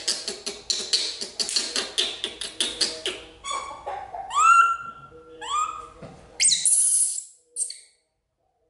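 Baby macaque calling: a fast run of short harsh squeaks for about three seconds, then several separate squeals that rise in pitch and level off, and a loud harsh burst about six and a half seconds in.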